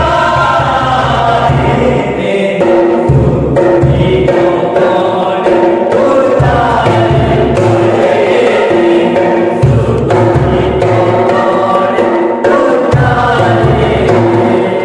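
Several men singing a devotional song together, with held notes, accompanied by a pair of tall wooden hand drums played with the hands in a steady rhythm.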